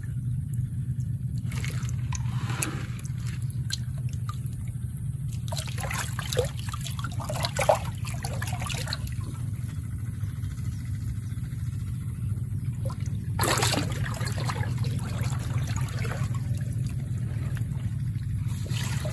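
Shallow muddy rice-field water sloshing and splashing in several short bursts as bare hands grope through it for freshwater clams, over a steady low rumble.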